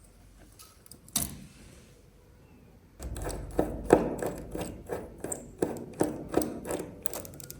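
Small hard clicks and taps of parts and tools being handled on a bench. One click comes about a second in, then after a quiet spell a quick run of taps, about three or four a second.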